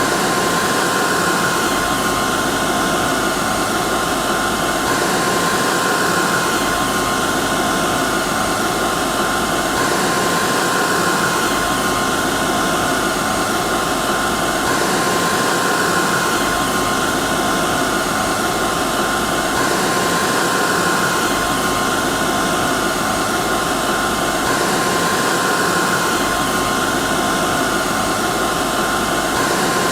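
Hair dryer running steadily: an even rush of airflow with a constant whine from the motor. The recording is a short stretch looped about every five seconds.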